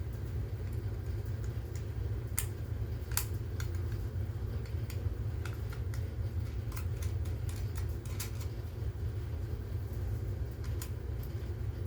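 Scattered light clicks and taps of plastic smoke alarm housings being handled, a few seconds apart, over a steady low hum.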